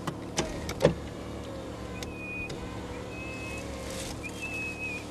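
A motor vehicle's engine idling with a steady hum, with a few sharp clicks in the first second, the loudest just before one second in. Three short, thin, high whistle-like tones come later.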